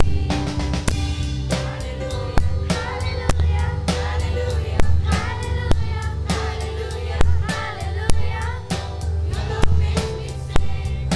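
A girls' choir sings a song in unison through stage microphones, over amplified accompaniment with a steady drum beat and heavy bass.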